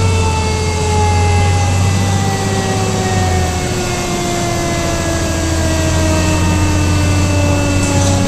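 Fire engine's heavy diesel engine drone inside the cab, under a siren whine that falls slowly and steadily in pitch as it winds down.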